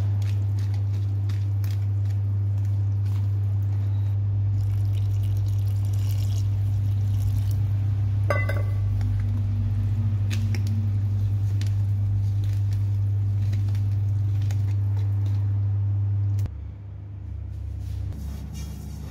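Wire hand whisk beating wet chocolate cake batter in a plastic bowl, with squelching and scattered light ticks and one sharper clink about eight seconds in. A loud steady low hum lies under it and drops away about three seconds before the end.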